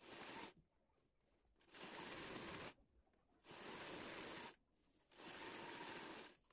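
Sewing machine stitching along the edge of a fabric blouse neck piece, heard faintly in four short runs of about a second each with dead silence between them.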